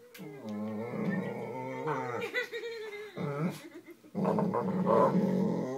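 Irish Wolfhound growling and grumbling in long, wavering stretches, with a short break about three and a half seconds in, as a child lies on it: the sound of an annoyed dog.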